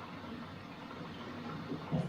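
Bosch washing machine running mid-cycle: a steady mix of drum and water noise, with one short louder knock just before the end.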